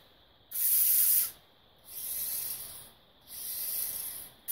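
Four short bursts of hissing noise, each under a second long, with short gaps between them; the last is the briefest.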